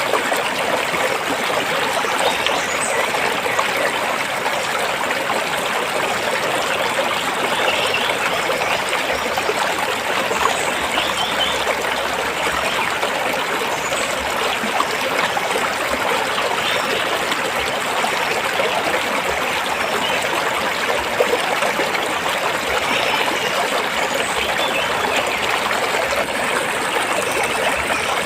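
Stream water flowing and trickling over rocks: a steady, unbroken rushing.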